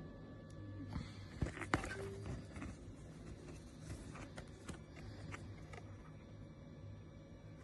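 A few faint clicks and knocks over a low steady hum, two louder ones close together about one and a half seconds in and fainter ones later.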